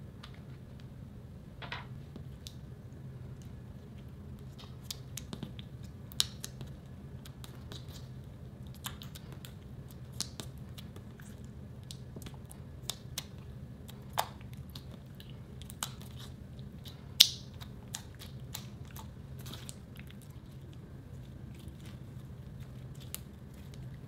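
Clear slime being folded and kneaded by hand: irregular sticky clicks and small pops, one much louder pop about seventeen seconds in, over a faint steady hum.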